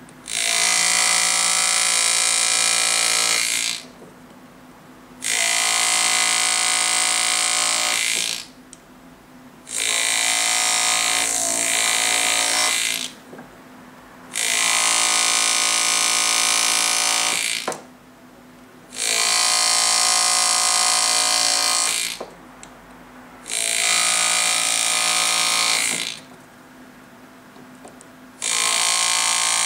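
Pneumatic hand-engraving graver buzzing in bursts of about three seconds with short pauses between, as it cuts letters into a gold signet ring.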